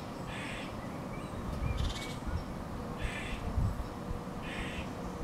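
Short harsh animal calls, three in all, each about a third of a second and spaced a second and a half apart, with low rumbles about two and three and a half seconds in.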